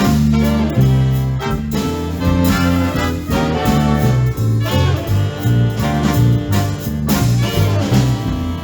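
Live big band playing swing: saxophones and brass over a walking bass and a steady beat.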